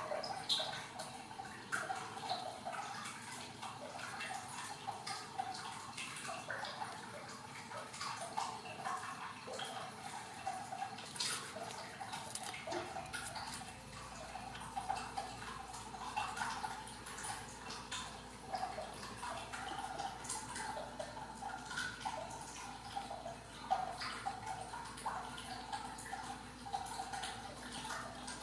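Newborn Ragdoll kittens, eyes not yet open, suckling and nuzzling: a steady run of soft, irregular wet smacking and clicking sounds.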